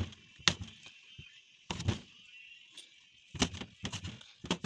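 Kitchen knife chopping cooked pork belly on a wooden cutting board: single chops at first, then a quick run of several chops near the end.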